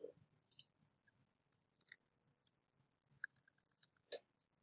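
Near silence with faint, irregular clicks from working at a computer, about seven over a few seconds.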